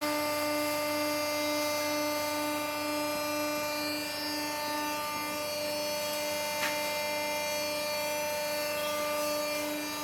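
Challenger pet pack baler's motor running with a steady, even whine. There is a single short click about six and a half seconds in.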